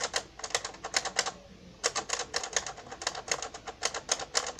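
Rapid, uneven light clicking, about five or six clicks a second, with a short pause about a second and a half in.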